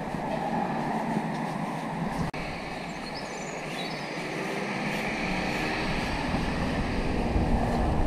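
Steady outdoor background hiss and rumble, with wind buffeting the microphone more strongly in the second half. A few short high chirps come about three seconds in, and there is a momentary dropout a little after two seconds.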